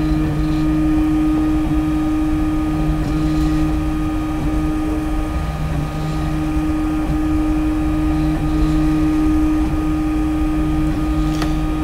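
Steady electrical hum from a da Vinci 1.0 3D printer standing by, with one constant low tone and a second, lower tone that comes and goes every second or two.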